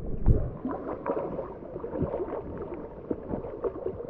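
Creek water sloshing and gurgling around a GoPro's waterproof housing held at the water surface, with a sharp knock on the housing just after the start. Small splashes and bubbling come thick at first and thin out towards the end.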